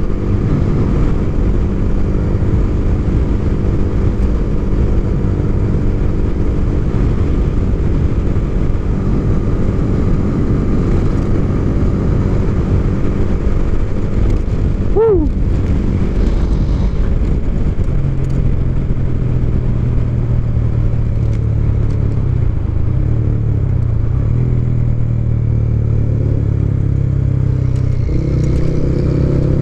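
Single-cylinder underbone motorcycle engine running on the road with wind rushing over the microphone. About halfway there is a brief rising-and-falling chirp; later the engine note settles lower, and near the end it climbs as the bike accelerates.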